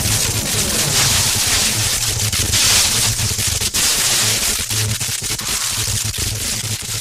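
Electric discharges: arcing sparks crackling with dense sharp snaps and a hiss, over a low electrical hum that comes and goes. The crackle eases slightly near the end.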